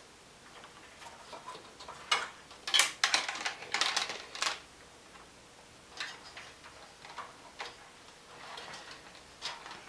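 Wire being handled and pulled into place: scattered light clicks and rustles, a busy cluster in the middle and a few more toward the end.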